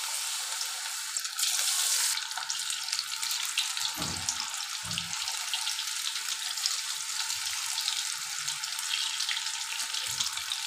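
Besan-battered fish pieces deep-frying in hot oil in an iron kadai: a steady, dense sizzle and crackle of bubbling oil, a little louder about a second and a half in, with a few soft low knocks.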